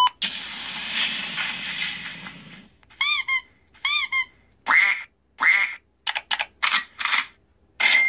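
A boom-swoosh sound effect: a rushing whoosh that fades out over about two and a half seconds. Then a plastic squeaky duck toy squeaks, two clear squeaks about three and four seconds in, followed by several shorter, rougher squeaks and clicks.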